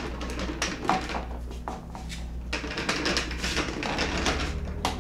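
Predator 3500 inverter generator being slid and turned around on a table top: irregular scraping and clattering of its housing against the surface, over a steady low hum.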